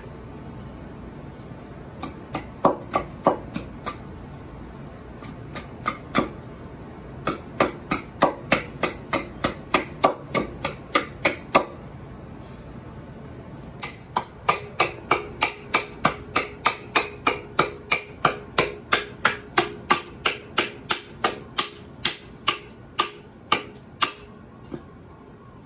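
Husqvarna carpenter's axe chopping a pine spoon blank braced against a log: a string of sharp chops, about two a second, in three runs with short pauses between. In the longest run each chop carries a faint ring.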